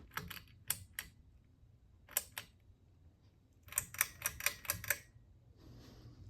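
Sharp, irregular clicks and taps, a few single ones and then a quick run of about eight, over the faint steady low hum of a running ceiling fan.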